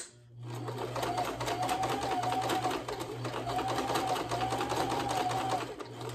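Electric sewing machine stitching at speed: a fast, even clatter of needle strokes over a steady motor hum, with a faint whine that comes and goes, as it sews back over the pleats of a cotton mask. A sharp click comes just before the stitching starts.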